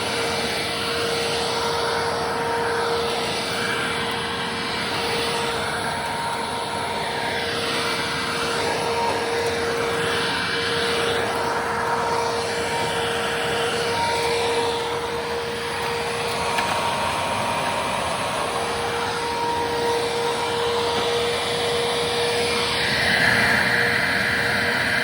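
Hoover Ultra Self-Propelled WindTunnel U6430-900 upright vacuum cleaner with a 12-amp motor running on carpet, a steady motor whine with the sound swelling and fading as it is pushed back and forth. Near the end a higher-pitched whine comes in and it gets a little louder.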